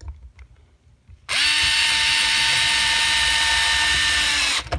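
Small cordless electric screwdriver driving a screw through a plastic camera bracket into a pre-drilled hole in wood, a steady whine that starts about a second in, runs for about three seconds and stops suddenly. The screw goes in easily because the hole was pre-drilled. A few faint clicks of handling come before it starts.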